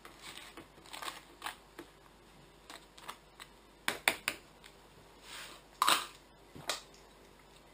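A metal spoon scraping and tapping as hummus is spread over pita breads on a wooden board, with a series of short sharp clicks and knocks, the loudest about four and six seconds in.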